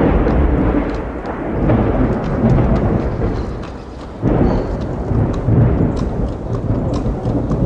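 Thunderstorm: heavy rain with rolling thunder, loud at the start and rumbling up again about four seconds in.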